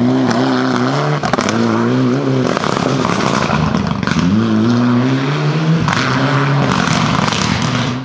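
Mitsubishi Lancer Evolution rally car's turbocharged four-cylinder accelerating hard out of a tight corner, its pitch rising and dropping back through several quick upshifts. Sharp cracks punctuate the engine note.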